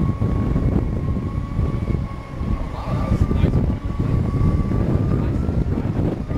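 Segway personal transporter's drive whining as one steady high tone that rises slightly in pitch near the end, under heavy wind buffeting on the microphone.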